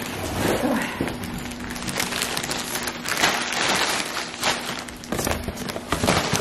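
Plastic grocery bags and food packaging rustling and crinkling in irregular handfuls as items are pulled out and unpacked.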